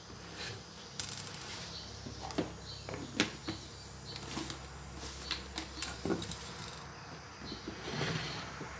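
Clear plastic food tub being handled and its lid fitted and turned: irregular light clicks and knocks of plastic, some against a wooden table top.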